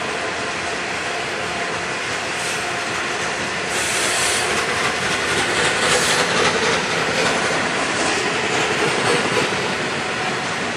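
A long rake of coal hopper wagons rolling past, their steel wheels rumbling and clattering over the rails and points. The noise swells for a few seconds in the middle, then settles back.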